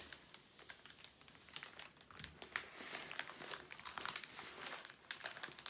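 Clear plastic protective film on a diamond painting canvas crinkling under hands pressing and smoothing it: quiet, irregular crackles.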